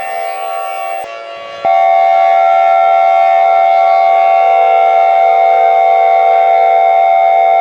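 Loud, steady emergency alert siren tone made of several pitches sounding together. It drops away briefly about a second in, then comes back louder and holds steady.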